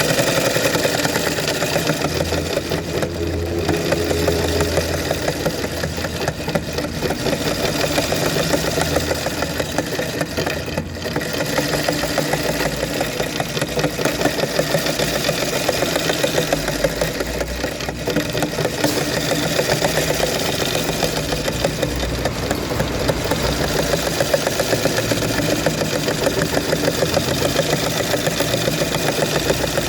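Electric sewing machine running steadily at speed, its needle stitching in a rapid, even clatter that starts abruptly.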